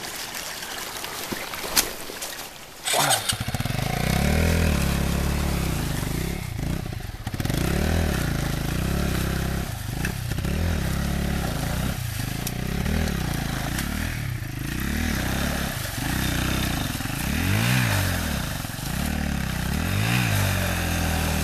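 Enduro motorcycle engine starting suddenly about three seconds in, then revving up and down again and again as the bike is worked through a shallow muddy stream, with water splashing.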